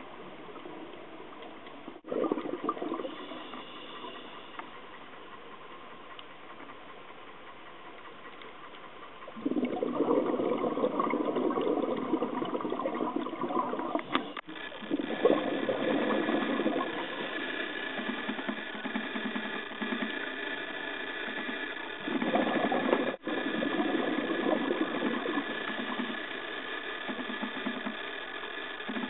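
Underwater sound through a dive camera's housing: water rushing and bubbling from scuba divers' exhaled air, much louder from about a third of the way in, with abrupt changes where the footage is cut. A faint steady hum runs under the later part.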